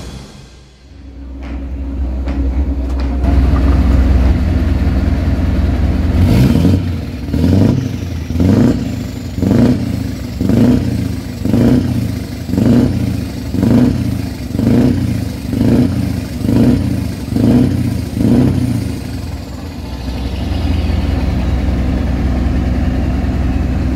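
Scania R520's V8 diesel through an open exhaust pipe, running steadily, then revved in quick blips about once a second, thirteen or so, before settling back to a steady idle near the end.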